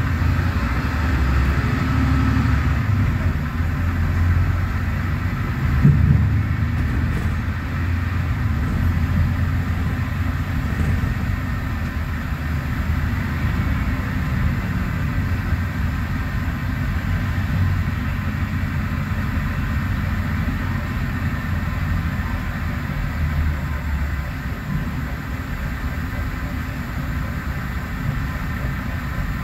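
Mercedes-Benz OM936LA six-cylinder diesel of an O500U city bus with Voith DIWA.6 automatic gearbox, running steadily under load as the bus drives uphill, heard from inside the passenger cabin.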